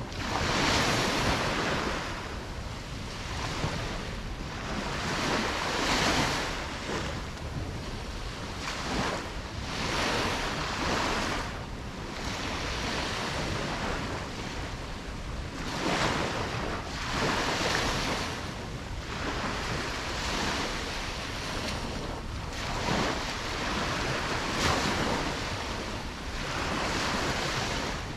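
Ocean waves breaking and washing up a beach, a new surge every two to four seconds over a steady low rumble of surf.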